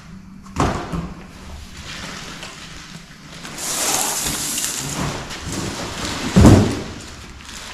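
Unboxing noises: foam and cardboard packaging being handled, with a stretch of crinkling plastic wrap around the middle and one heavy thud about six and a half seconds in.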